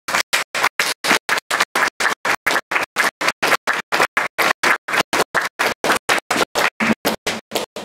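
Grand piano recording broken by a regular audio stutter. The sound cuts in and out about seven times a second, and each slice is a scratchy rasp of noise with no clear piano notes left in it.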